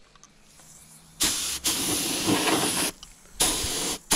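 A mini spray gun spraying 2K lacquer in short hissing blasts of compressed air, turned down to a low fan and pressure. The first blast comes about a second in and lasts nearly two seconds. A shorter one follows, and a third starts near the end.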